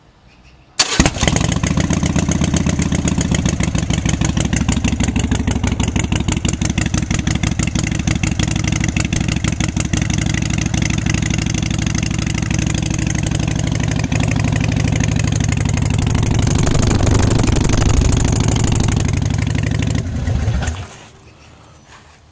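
2010 Harley-Davidson Iron 883's air-cooled 883 cc V-twin firing up from a cold start about a second in, then running with an even pulsing beat through exhaust fitted with quiet baffles. It is switched off near the end.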